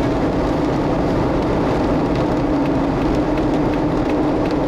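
Steady road noise of a moving car heard from inside, with the windows open: tyre and wind rush with a constant low hum.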